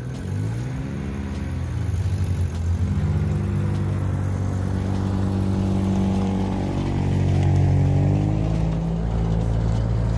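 An engine running. Its pitch dips and rises twice in the first couple of seconds, then mostly holds steady with slow shifts up and down.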